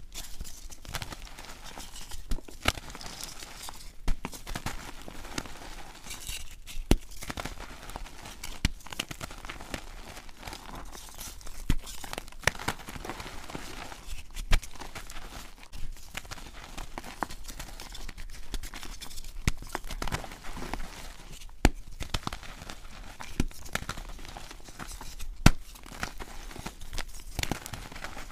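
Hands crushing and crumbling blocks of dyed gym chalk into loose chalk powder: a steady dry crunching and crackling, with sharp snaps every few seconds as pieces break.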